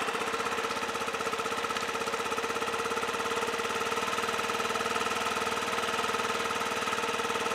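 Yamaha Vino SA37J scooter's 50 cc single-cylinder four-stroke engine idling steadily with an even, fast pulsing beat. The seller describes the engine as being in good condition.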